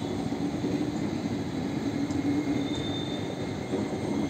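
Indian Railways passenger coaches passing close by, their wheels and bogies giving a steady rolling rumble on the track.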